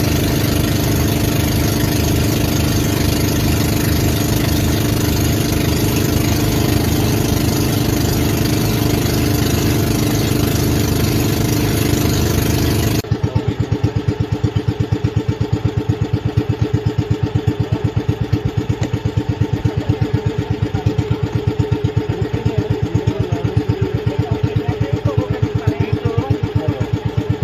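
Motor outrigger boat's engine running steadily at speed, then from about halfway through idling with an even pulsing beat.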